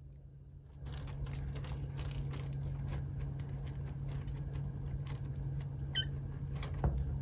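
A kitten scratching and digging in pellet litter in a plastic litter box: the pellets shift and click in quick, irregular bursts starting about a second in, over a low steady hum.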